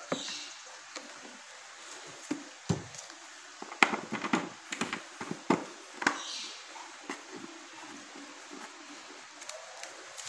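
Sharp plastic clicks and knocks as hands fit an old electric fan's plastic switch housing onto its stand tube, thickest in a cluster through the middle.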